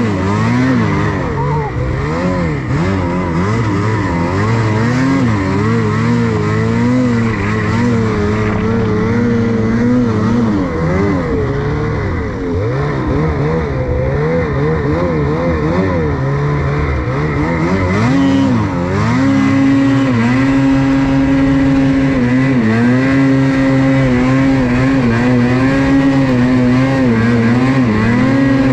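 Ski-Doo Freeride 850's two-stroke twin engine running under load in powder snow. Its pitch rises and falls constantly as the throttle is worked, then holds higher and steadier through the last third.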